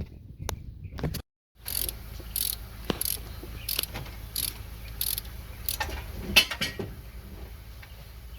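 A hand ratchet clicking in repeated short strokes, about two a second, as rocker arm bolts are run down on a 6.0L LS V8, over a low steady hum.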